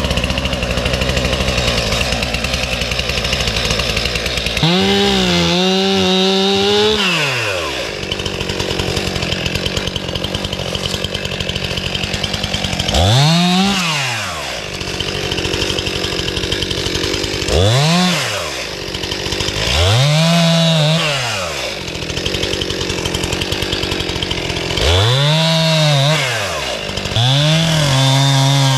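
Stihl two-stroke chainsaw running and being throttled up about six times, each time rising in pitch and dropping back, as it cuts limbs from a fallen tree.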